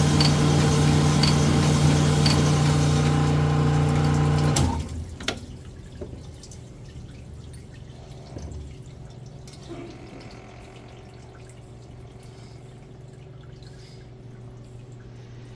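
Cylinder honing machine running steadily as its hone takes the last few thousandths out of a cast-iron Toyota 22R cylinder bore under flowing honing oil. It shuts off abruptly about five seconds in, a single click follows, and honing oil trickles and drips into the block.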